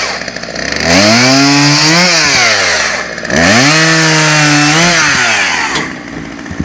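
Gas chainsaw cutting through a birch log: the two-stroke engine is throttled up and held at a steady high pitch under load through two cuts, dropping back to a lower idle briefly between them and again near the end.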